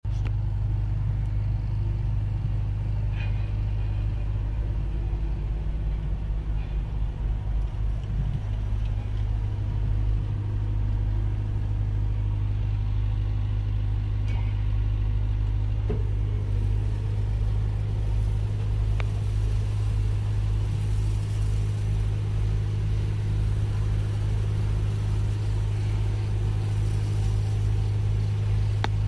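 The engine of a self-propelled truck-washing machine running steadily under way, with a strong low hum. From about halfway through, water spray hisses against the machine.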